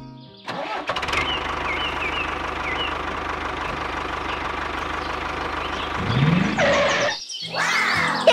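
Tractor diesel engine starting and running with a steady low chug, revving up about six seconds in.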